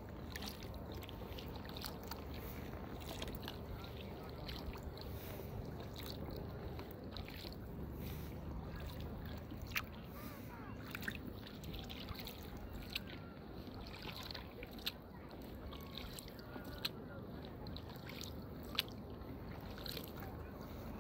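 Double-bladed paddle strokes from an inflatable kayak: water splashing and dripping off the blades in many small ticks, with a few sharper clicks, over a steady low rush.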